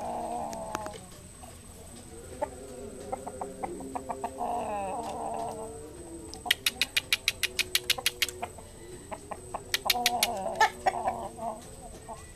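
Rooster clucking in short calls: once at the start, again about four and a half seconds in, and again near ten seconds. Between the calls comes a fast run of sharp clicks, about eight a second.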